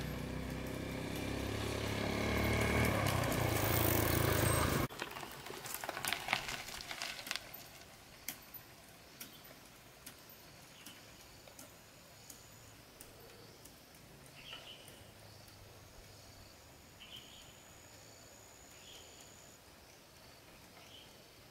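A motorbike engine running on the road, cut off abruptly about five seconds in. A few sharp clicks follow, then quiet outdoor ambience with occasional short faint bird chirps.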